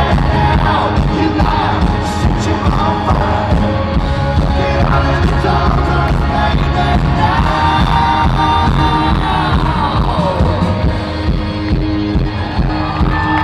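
Live rock band playing loudly in a large hall, with a sung vocal line over the guitars and drums, recorded from among the audience.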